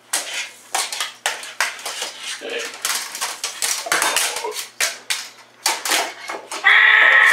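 Reacher grabber tools clicking, scraping and clattering against a small jar and a tiled floor in many quick, irregular knocks. A cat meows loudly near the end.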